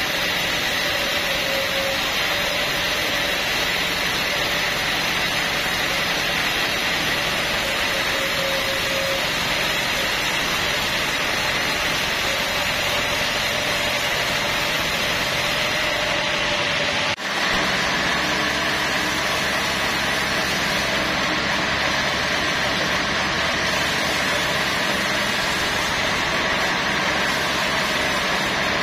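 Band sawmill running steadily while teak logs are sawn, a continuous mechanical noise with a steady high whine. Briefly drops out about 17 seconds in, then carries on the same.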